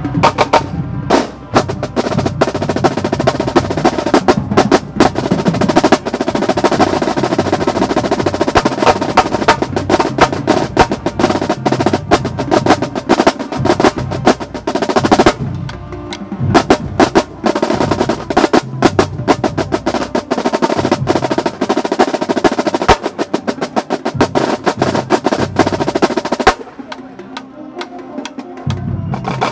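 Marching band drumline, snare drums and bass drums, playing a fast cadence with rapid snare rolls. There is a brief break about halfway through, and near the end it drops to a much quieter passage before loud hits come back in.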